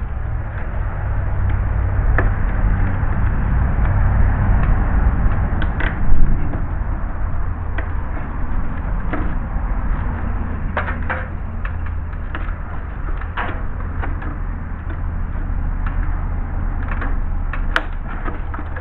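Scattered knocks and clicks of hand work on a tie-down strap and the shelter frame, the loudest a single knock about six seconds in, over a steady low rumble.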